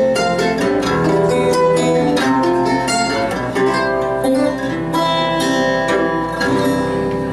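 Acoustic guitar and a second plucked string instrument played live, picking a busy instrumental passage of quick notes.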